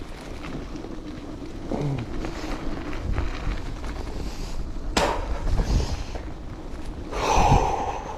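Bicycle riding over gravel: steady rumble and rattle of the tyres and frame with wind on the microphone, a sharp clack about five seconds in and a louder burst of noise near the end.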